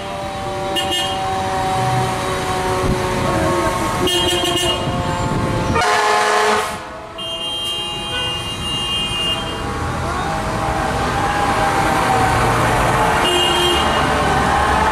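Fire engine's Q mechanical siren winding down with a falling whine, broken by several blasts of its air horn, the loudest about six seconds in. In the second half the siren winds up again with a slow rising whine over traffic noise, and there is another short horn blast near the end.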